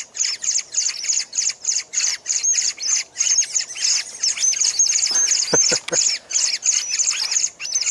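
Many small birds chirping in a dense, unbroken chatter of short, high chirps that drop in pitch, several each second.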